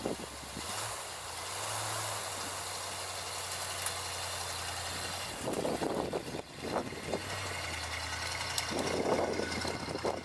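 A 1985 Chevrolet C10 pickup's carbureted 305 V8 running as the truck pulls away through about five inches of snow. The engine note steps up a little about a second in, and there are louder rough bursts about halfway through and near the end.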